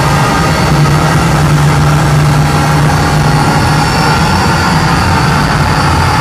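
Loud live electronic drone music over a concert PA: a sustained low hum with steady higher tones and noise layered on top, with no beat.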